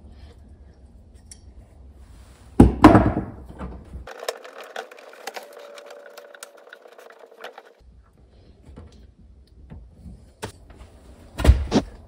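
Hand work on water heater plumbing: an inline flow regulator being threaded onto a pipe fitting and a wrench put to it, giving small metallic clicks and clinks. Two loud thunks stand out, about three seconds in and near the end.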